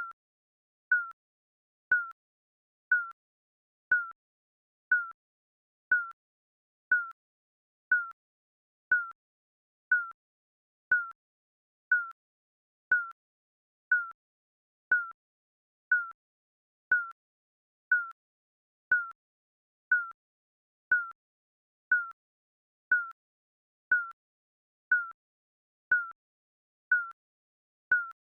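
Digital countdown timer beeping: one short, high electronic beep every second, evenly spaced, with silence between.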